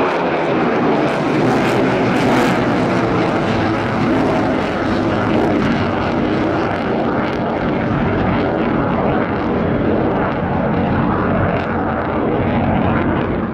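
Loud, steady jet noise from a Eurofighter Typhoon's twin Eurojet EJ200 turbofan engines as the fighter climbs away overhead after a performance take-off.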